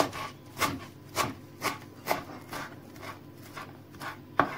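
Chef's knife chopping parsley finely on a wooden cutting board: the blade knocks on the board about twice a second, nine or so strokes with a short pause about three seconds in.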